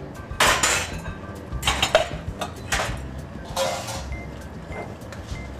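A utensil stirring peas in a sauce in a pan, scraping against the pan in about four short strokes.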